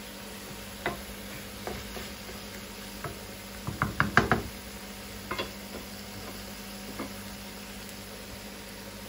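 Wooden spatula knocking and scraping against a frying pan while stirring minced chicken and vegetables, over a low steady sizzle. Scattered single knocks, with a quick run of about six louder knocks around four seconds in.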